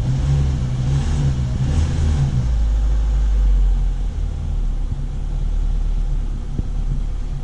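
A Daewoo Sens car engine running at idle. It is fuller for the first couple of seconds, then settles to a steady low idle.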